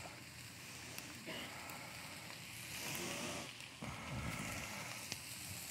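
Faint steady sizzle of corn, peppers and peas sautéing in a sauté pan for succotash, with a few light clicks.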